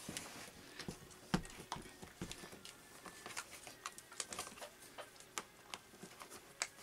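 Laces being pulled and tightened through the eyelets of leather Grinders boots being put on, with faint irregular clicks and rustles. One sharper knock comes about a second and a half in.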